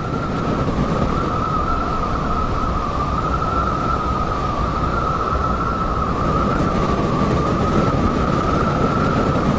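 Blizzard wind: a loud steady rush with a high whistling tone that wavers slightly in pitch, and a low rumble of wind buffeting the microphone.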